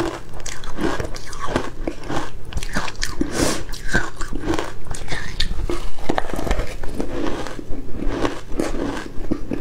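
Ice chunks coated in matcha powder being bitten and chewed, close to the microphone: dense, irregular crunching.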